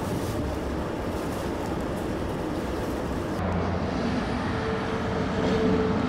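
Sanyo Electric Railway train running through the station, a steady low rumble of wheels on track. About three and a half seconds in the sound changes abruptly, and a steady whine comes in and grows louder near the end.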